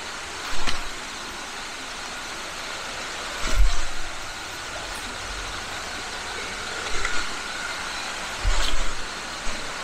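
Steady rush of a flowing stream, with a few low thumps from footsteps in sandals on rocky ground, about four of them.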